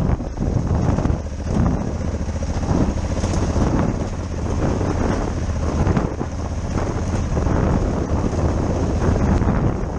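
Honda Africa Twin's parallel-twin engine running at low road speed, with wind buffeting the microphone.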